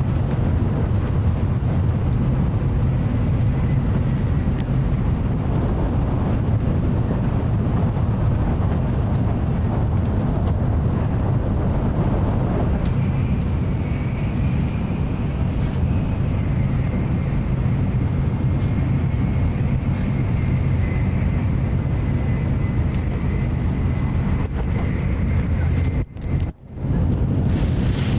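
Shinkansen bullet train running at speed, heard inside the passenger car: a steady low rumble of the running gear on the track, with a faint high whine through the middle part. Near the end the sound drops away sharply twice for a moment, then comes back.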